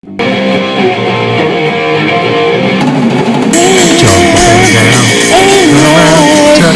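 Rock band playing, with electric guitar, bass guitar and drum kit. About three and a half seconds in, the sound fills out with cymbals, and a wavering lead melody comes in over the band.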